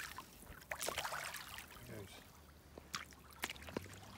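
A small school bass splashing in shallow seawater as it is released and swims off. A few light splashes and trickles, louder at first and fading.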